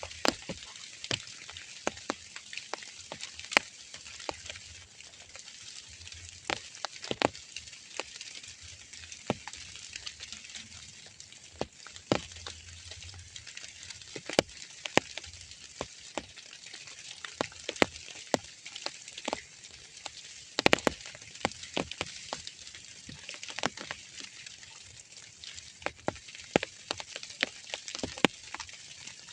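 Drizzle falling: a steady soft hiss with many irregular sharp drop ticks, some much louder than others.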